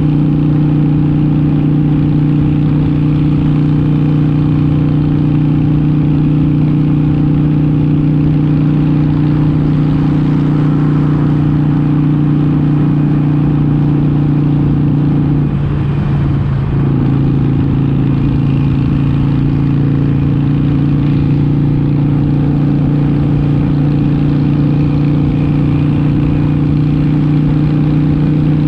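Motorcycle engine and exhaust running steadily at highway cruising speed. About halfway through, the engine note breaks briefly and settles at a slightly lower pitch.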